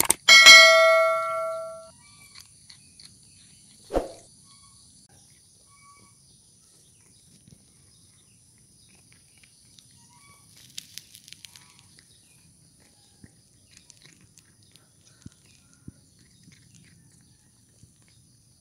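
A bell-like chime from a subscribe-button animation rings just after the start and fades within about two seconds; a single thump follows a couple of seconds later. After that come faint crunching clicks of a cat chewing dry kibble, thickest around the middle.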